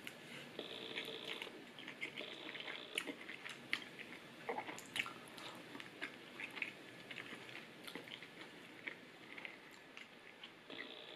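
A person eating noodles and stewed beef close to the microphone: slurping and chewing, with many small wet smacks and clicks.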